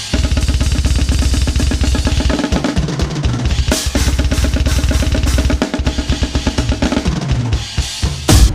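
Metal drum kit playing fast blast beats: very rapid bass drum and snare strokes over music with sustained pitched notes. There are crashing hits about four seconds in and a louder one just before the end.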